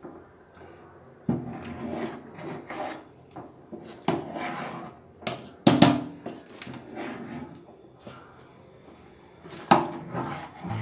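Metal spoon stirring thick, simmering khichuri in a metal pot: wet scraping swishes, with a few sharp clinks of the spoon against the pot a little past halfway and near the end.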